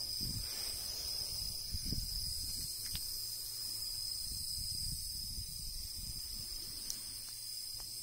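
Night insects singing: one steady, unbroken high-pitched trill, with an uneven low rumble on the microphone underneath.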